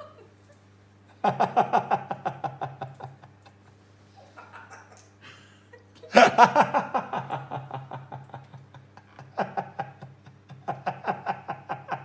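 African grey parrot imitating human laughter: three bouts of rapid, rhythmic 'ha-ha-ha', each trailing off, the middle one the loudest.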